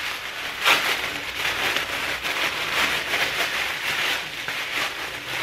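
Orange tissue-paper gift wrapping crinkling and rustling as it is pulled open by hand.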